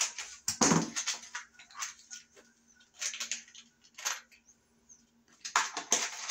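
Small metal screws rattling and clinking in a box as a hand rummages through them, in three short bouts.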